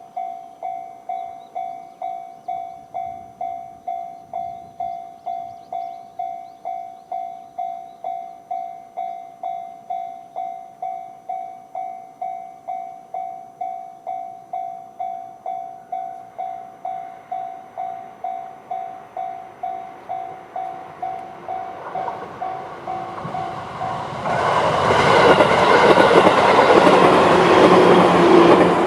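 Japanese level-crossing alarm in the JR standard electronic tone, dinging steadily about one and a half times a second. About 22 seconds in, an approaching train grows louder, and from about 24 seconds a JR 211 series electric train passes loudly over the crossing, drowning out the bell.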